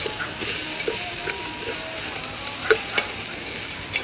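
Spiced rice sizzling in oil in an open pressure cooker as a spoon stirs it, with a few short clinks and scrapes of the spoon against the pot.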